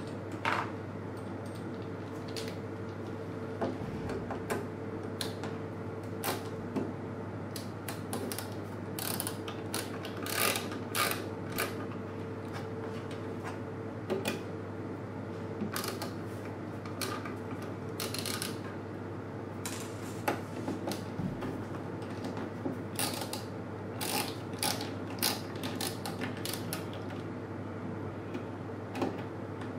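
Screwdriver backing the screws out of a Cisco ASA 5508-X firewall's metal top cover: small irregular clicks and ticks of the tool on the screws, coming in clusters.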